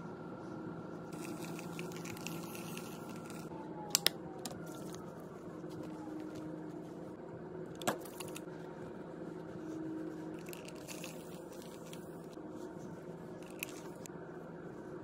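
Hands scrunching damp curly hair worked with styling product, giving soft squishing, rustling handling noise over a steady low room hum. A few sharp clicks: two close together about four seconds in, one near the middle and a small one near the end.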